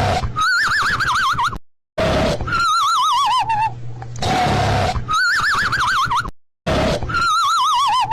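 Cartoon snoring sound effect: a rasping snore on the in-breath, then a warbling, wavering whistle on the out-breath, repeating about every two seconds. It cuts to silence briefly twice where the loop restarts.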